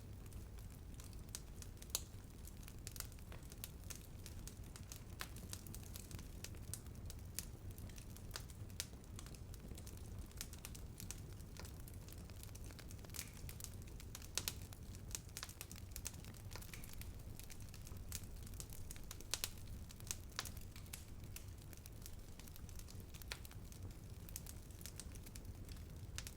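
Wood fire burning, with frequent irregular sharp crackles and pops over a low steady rumble.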